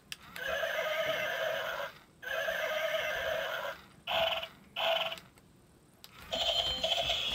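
Electronic walking-unicorn toy's small built-in speaker playing its recorded horse-neighing sound effects. The sound is tinny with no bass and comes in several separate bursts: two long ones, two short ones, and another near the end.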